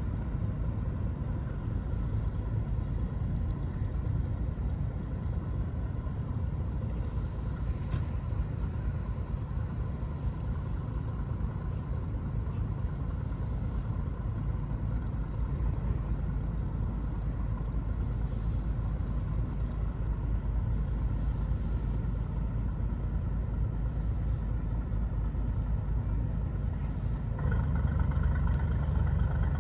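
Steady low engine rumble with a faint steady hum, growing louder near the end.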